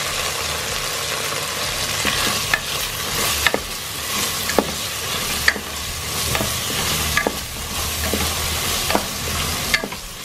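Marinated rice with whole spices frying in oil in an electric multi-cooker's pot, sizzling steadily, while a wooden spatula stirs and scrapes through it, knocking sharply against the pot every second or so.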